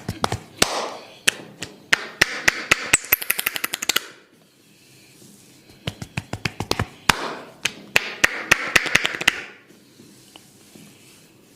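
Hair cracking during a head massage: rapid sharp cracks as hair is twisted and tugged between a barber's fingers, over a scratchy rustle of hair, in two runs of a few seconds with a short pause between.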